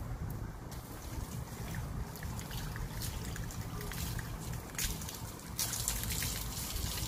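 Water from a garden hose splashing and trickling on a wet dog's coat and the patio tiles. The splashing grows louder a little past halfway.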